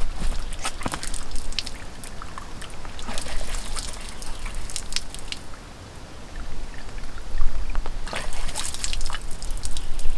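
Water trickling and dripping from the tap of a hanging plastic water bag into cupped hands and onto the ground. Near the end it splashes more heavily as water is thrown onto the face.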